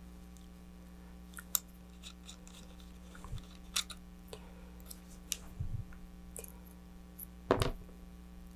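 Handling noise: scattered small clicks and taps as small parts and wire are worked by hand, with a louder knock about three-quarters of the way through, over a faint steady hum.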